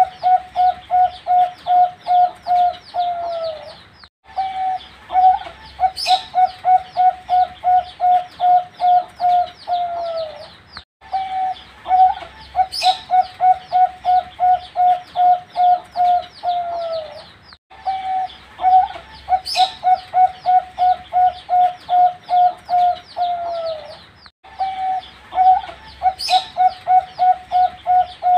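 Young zebra dove (perkutut) singing. The same phrase repeats about every six or seven seconds: a fast run of staccato coos, about four a second, ending in a falling note. A brief high-pitched chirp comes once in each cycle.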